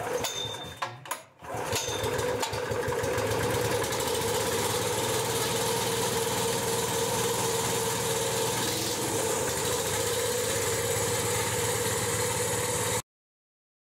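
Gasoline engine of a Hitachi EC2510E wheelbarrow air compressor starting, now that its fuel is turned on. A few sharp knocks, then it catches about a second and a half in and runs steadily, stopping suddenly near the end.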